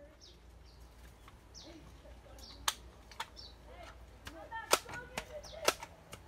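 Daisy Powerline 35 air rifle being pumped: a series of sharp clacks from the pump lever, coming about once a second in the second half, over faint bird chirps.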